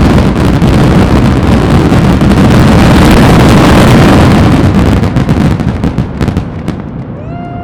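Dense barrage of daylight firework salutes going off in rapid succession, merging into a continuous rumble of bangs. After about five seconds it dies down into scattered single reports. Near the end a short pitched tone sounds.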